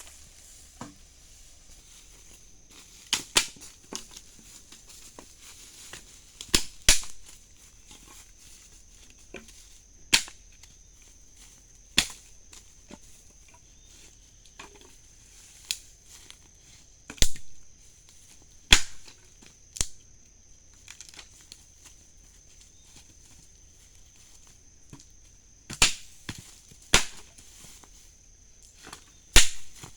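Sharp, irregular knocks and cracks, about a dozen, some in quick pairs, over a steady faint high-pitched whine.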